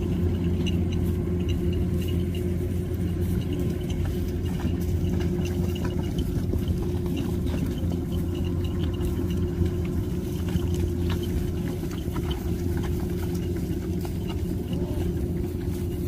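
Kubota DC-105X combine harvester's diesel engine running at a steady speed, an even low hum that does not rise or fall.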